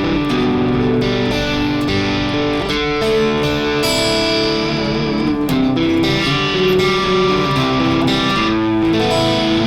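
Electric guitar played through a Friedman BE-Mini solid-state amp, with the guitar's volume knob rolled back so the crunch channel cleans up to a somewhat clean tone. Notes and chords ring and change every second or so.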